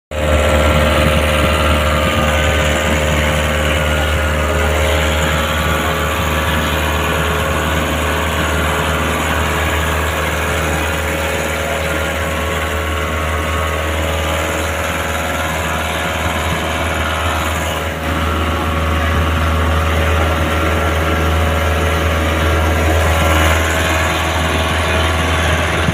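A vehicle's engine running steadily: a loud, unbroken low hum with a constant drone above it.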